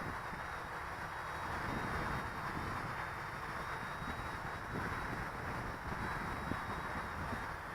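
Gusty wind buffeting the microphone: an uneven low rumble under a steady hiss, with a faint high steady tone.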